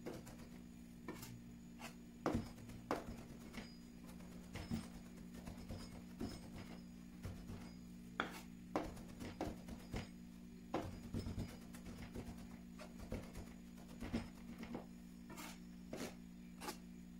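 Chef's knife mincing boletus mushrooms on a plastic cutting board: irregular taps of the blade against the board, with a steady low hum underneath.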